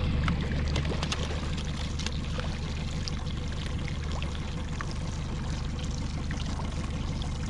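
Water sloshing and trickling at a boat's stern as a hooked fish is worked toward a landing net, over the steady low hum of an outboard motor running at trolling speed.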